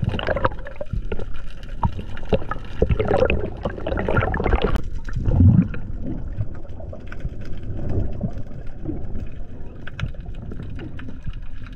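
Underwater camera audio on a reef: muffled water movement and gurgling, with many small scattered clicks and crackles.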